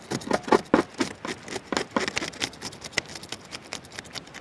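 Kitchen scissors' blade scraping the scales off a pearl spot (karimeen) fish: a quick, uneven run of short scrapes and ticks as the scales come away.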